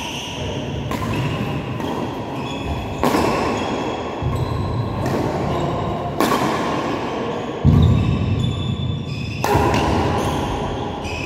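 A badminton rally in a large hall: sharp racket strikes on the shuttlecock at irregular intervals, with thudding footsteps and short shoe squeaks on the court floor, all echoing.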